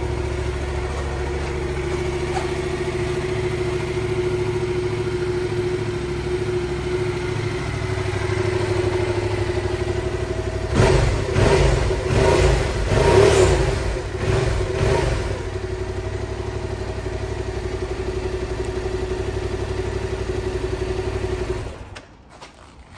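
Yamaha XSR700's 689 cc parallel-twin engine idling steadily. About halfway through it gets a few seconds of throttle blips, then it settles back to idle and stops abruptly near the end.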